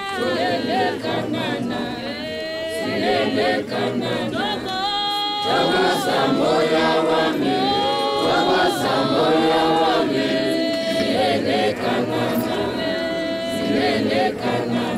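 A group of voices singing together unaccompanied, with several long held notes.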